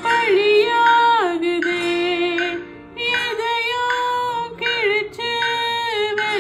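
A song: a high female voice sings a slow melody, holding notes and sliding between them, with a short pause just before halfway.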